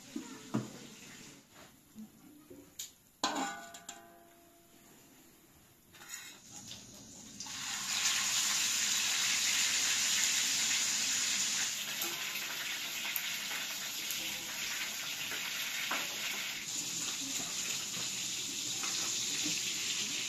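A few clinks of a metal lid on a steel cooking pot, then from about seven seconds in a steady, loud sizzle of salmon frying in oil in a wide pan.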